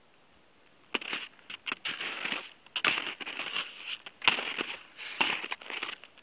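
Crunching of boots stepping in dry, crusty snow: a run of irregular crunches starting about a second in, breaking off briefly now and then.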